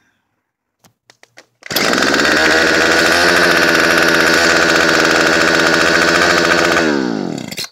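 Homelite string trimmer's two-stroke engine, running mostly on soybean vegetable oil, comes in suddenly and runs loud and steady at high revs, blowing smoke, then its revs fall away near the end. A few faint clicks come just before it.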